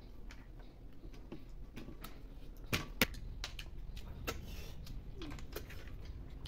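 Scattered sharp clicks of small freshwater snail shells knocking against a steel plate and against each other as snails are picked up and eaten by hand, with two louder clicks in quick succession about three seconds in.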